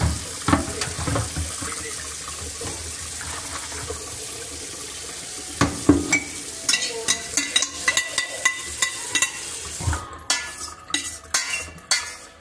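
Tap water running into a stainless steel sink over a colander of drained pizzoccheri, with a few knocks. From about six seconds in, a rapid run of clinks and scrapes of metal on a steel pot as the pot is scraped out over the colander; the running water stops about ten seconds in while the clattering goes on.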